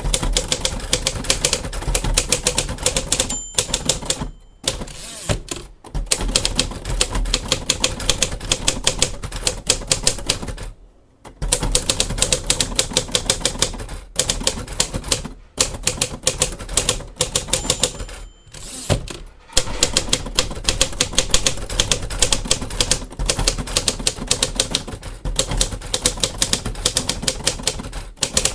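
Pre-war 1940s Royal Aristocrat manual typewriter being typed on at speed: rapid key strikes broken by a few short pauses. A brief ringing tone, the end-of-line margin bell, sounds twice, about three seconds in and again past halfway.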